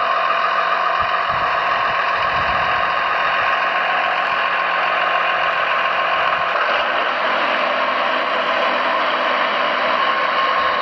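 Radio-controlled model construction vehicle running, a steady mechanical whine from its electric drive and gearing.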